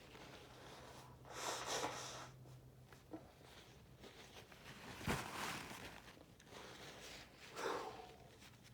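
A man sniffing and breathing hard through his nose, his nose irritated by snuff: three noisy breaths a few seconds apart, the middle one starting with a sharp burst about five seconds in.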